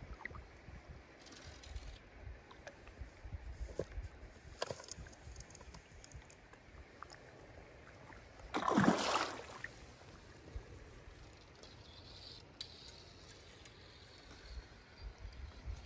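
A hooked chub splashing at the water surface as it is played toward a landing net, with one loud splash a little past halfway through. Otherwise faint water sounds and small clicks over a low rumble.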